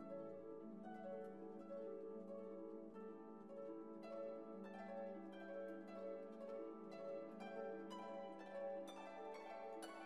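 Background music: a run of plucked string notes over a held low note.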